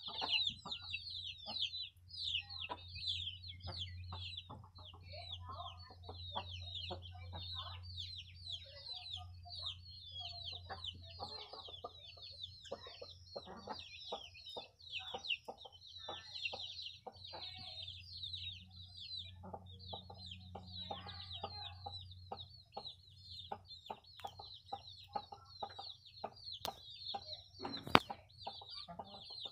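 A group of country chicken chicks peeping constantly in rapid, high, falling cheeps. A low steady hum runs underneath until about three-quarters of the way through, and a sharp knock sounds near the end.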